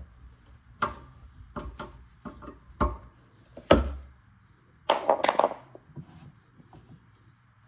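Sharp knocks and clinks of a screwdriver against metal garbage disposal mounting hardware being tightened and handled: a string of separate taps, the loudest nearly four seconds in, then a brief rattling clatter about five seconds in.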